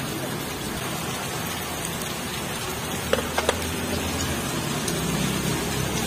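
Steady, even hiss like rain, with three quick light clicks of small metal engine parts being handled about halfway through.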